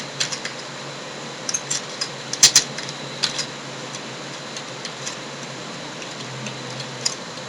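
Scattered keystrokes on a computer keyboard, a few clicks at a time with pauses between, over a steady hiss and low hum.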